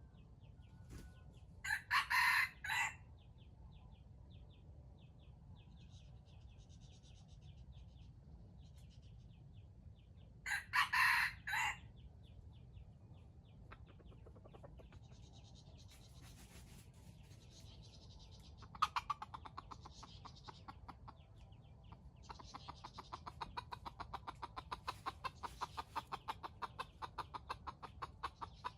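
A rooster crows twice, short crows each a little over a second long, about 2 seconds in and again about 11 seconds in. Faint quick chirping sits underneath. From about two-thirds of the way through, a rapid pulsing trill of many ticks a second builds and carries on to the end.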